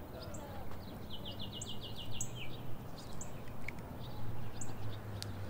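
Wild birds chirping, with short high calls scattered through and a quick run of about eight repeated notes a little after a second in, over a low steady outdoor rumble.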